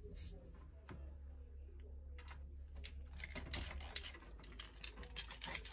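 Handling of a Lian Li SL120 RGB PC fan and its cables: a few separate small plastic clicks, then a busier run of quick clicks and rattles in the second half, over a low steady hum.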